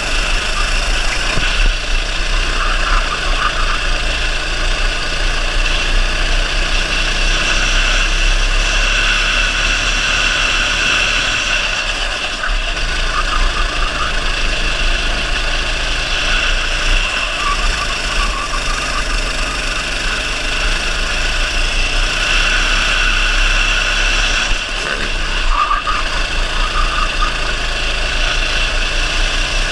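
Go-kart engine running hard through a lap, heard onboard from the driver's position, the sound steady apart from a few brief dips as the kart slows into corners.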